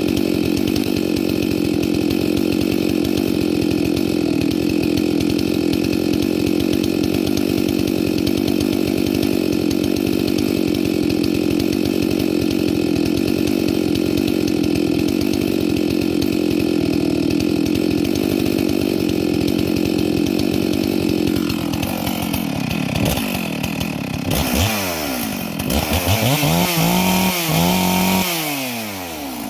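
Chainsaw running steadily at one held pitch, typical of cutting through a log, for about twenty seconds. It then drops off and revs up and down several times in quick swells near the end.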